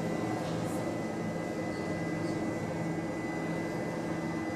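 A steady mechanical hum with a low drone, unchanging throughout.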